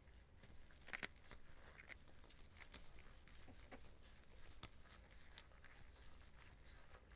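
Hands in nitrile gloves worn over latex kneading butter with fish dashi powder: scattered soft sticky squelches and small clicks, the sharpest about a second in.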